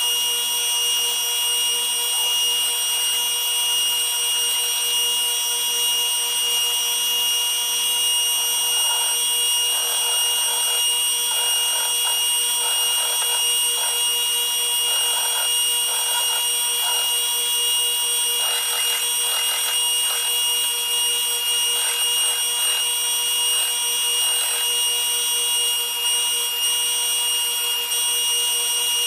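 A power tool motor running with a constant whine throughout, joined from about a third of the way in by many short, irregular bursts of rougher noise, like work being pressed against it on and off.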